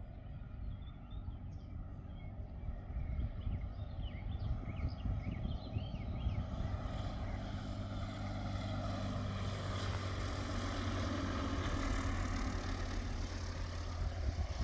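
Scheibe SF-25 Falke motor glider's propeller engine running on a landing approach, growing steadily louder as the aircraft comes in low toward the field. Birds chirp faintly over it in the first few seconds.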